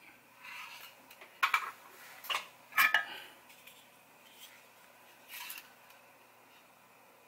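Small metal tools clinking and clattering against the opened mouse and the bench, several sharp clinks in quick succession between about one and a half and three seconds in, with softer rustling around them.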